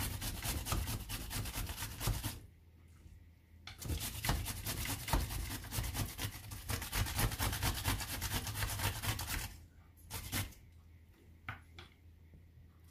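Cucumber being grated on a handheld metal grater: rapid rasping strokes in two runs, with a short pause about two seconds in. The grating stops about nine and a half seconds in, leaving a few light taps.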